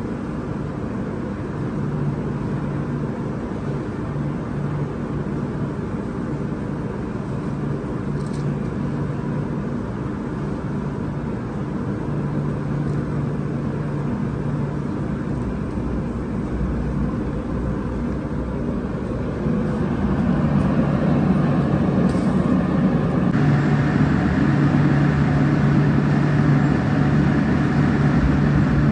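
Steady mechanical drone of commercial kitchen machinery, the conveyor pizza oven's fans and blowers, with a low hum; it grows louder about two-thirds of the way through.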